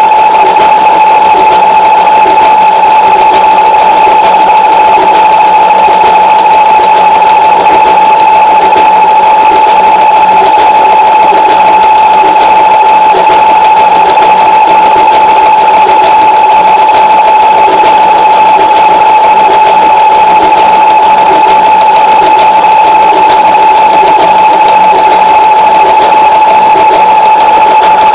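Brother Fashion Maker electric sewing machine running steadily at speed, sewing an overlock stitch along a raw fabric edge: a loud, even motor whine over the rapid clatter of the needle strokes.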